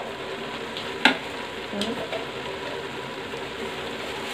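Steady sizzling of chopped gourd, onion and tomato cooking with ghee and spices in an aluminium pressure cooker, with two light clicks, about a second in and near two seconds in.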